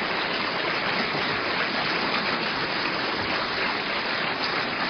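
A seated audience in a hall applauding, many hands clapping steadily together.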